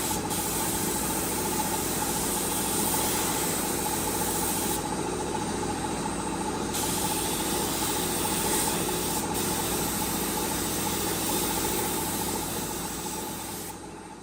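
A machine running steadily: an even hiss over a constant hum, fading out near the end.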